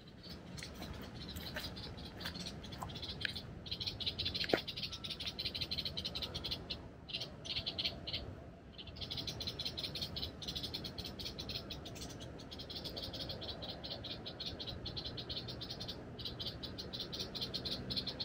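Frogs calling in a dense chorus of rapid pulsing trills, with a brief lull about eight seconds in.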